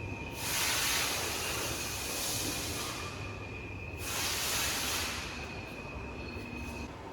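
Portable line boring machine running with a steady high-pitched whine, joined twice by loud bursts of hiss lasting about two seconds and one second.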